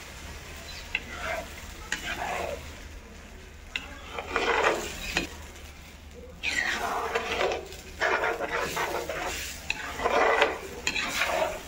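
Metal ladle stirring and scraping a thick tomato paste and grated carrot masala around a metal pot, with the sizzle of the masala frying in oil. The strokes come irregularly, more often and louder in the second half.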